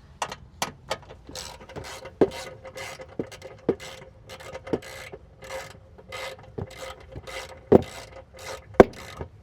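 Socket ratchet wrench turning a fastener, its pawl rasping on each back-swing about twice a second, with a few sharper knocks, the loudest near the end.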